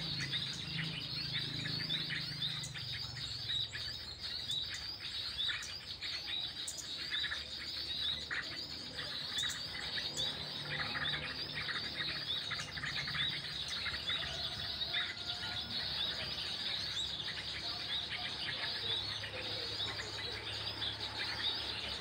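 Small birds chirping and calling continuously, a steady stream of short, quickly repeated high chirps.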